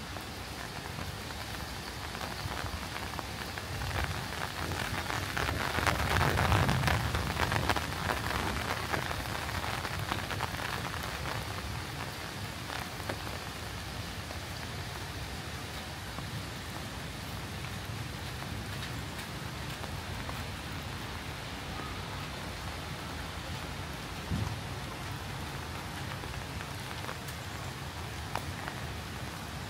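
Rain falling steadily, heard as a dense patter of small drop ticks. A louder swell with a low rumble builds and fades around five to nine seconds in, and there is a single faint knock near the end.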